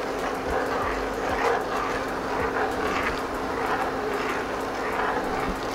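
Pan of coconut milk and pasta boiling on the stove, bubbling irregularly over a steady low hum.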